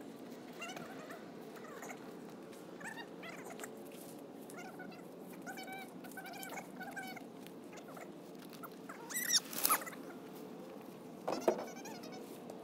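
A series of short, high animal calls repeating over a few seconds, with two louder, sharp sounds near the end.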